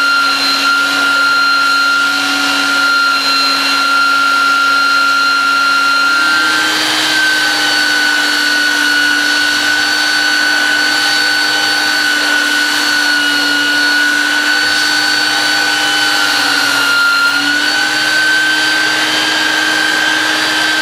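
Belt sander, clamped upside down and fitted with a coarse 40-grit belt, running steadily with a high whine as a wooden rod is ground into a tapered trunk. Its pitch steps up slightly about six seconds in and again near the end.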